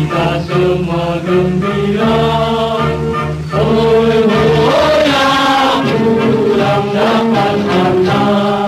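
Background music with sung, chant-like vocals over a steady low drone.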